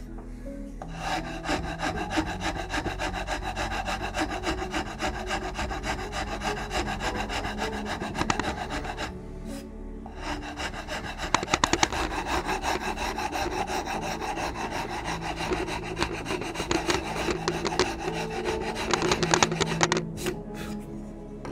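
Hand file rasping across a wooden gunstock pattern in quick back-and-forth strokes, shaping the comb nose. It pauses briefly about nine seconds in and stops near the end. Soft background music plays underneath.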